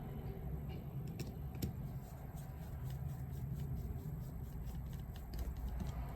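Small metal clicks and taps as padlock parts are handled and fitted together by hand, with a run of quick, even ticks about five a second in the middle, over a steady low rumble.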